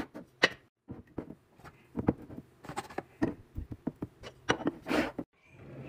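Kitchen containers and packaging being handled and set down: an irregular run of clicks, taps and knocks, about a dozen of them.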